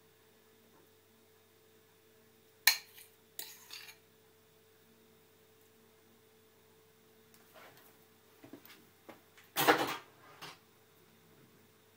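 Crockery and a utensil clinking against a glass bowl and plate as food is dished up: a sharp clink about two and a half seconds in and a short clatter after it, then a run of knocks near the end, the loudest about ten seconds in. A faint steady hum sits underneath.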